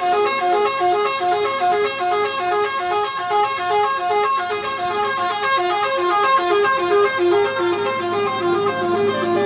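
Basuri telolet multi-tone bus horn playing a quick melody of short, stepping notes without a break.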